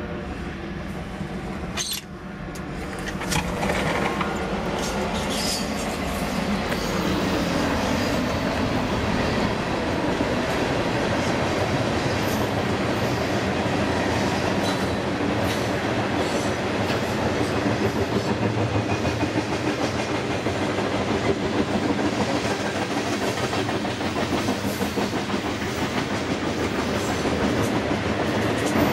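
Train passing close by: a steady rumble of wheels on rails that builds over the first few seconds and then holds, with wheels clicking over rail joints.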